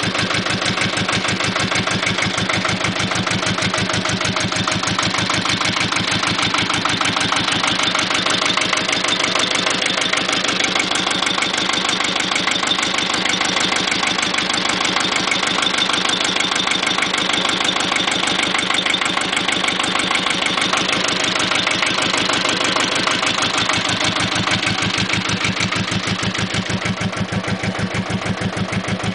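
Mitsubishi Beaver S-270 tractor engine idling steadily with a clatter, its valve clearances freshly adjusted.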